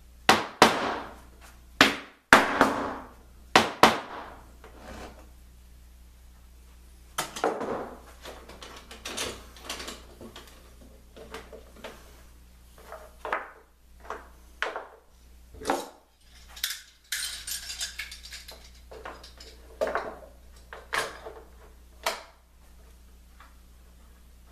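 Wooden blocks and metal bar clamps being handled and set down on a plywood top: a series of knocks and clatters, the sharpest in the first four seconds, with a short scraping noise about seventeen seconds in.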